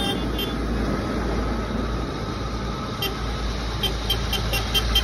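Farm tractors driving past one after another: a steady diesel engine rumble with tyre noise on a wet road. From about three seconds in, a faint rapid high pulsing joins.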